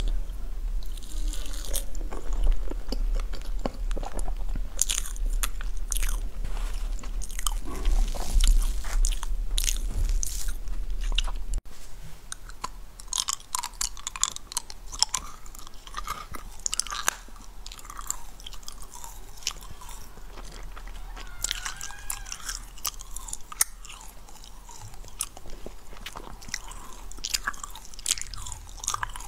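Close-miked ASMR eating sounds: biting and chewing a matcha and red bean crepe cake, with a low electrical hum underneath. About a third of the way in the sound drops suddenly to quieter, sparser wet mouth clicks and chewing of another bite.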